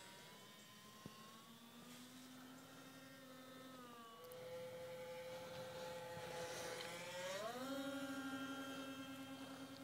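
Radio-controlled model airplane's motor whining in flight, its pitch dropping about four seconds in, then rising sharply and growing louder as it is throttled up or passes close.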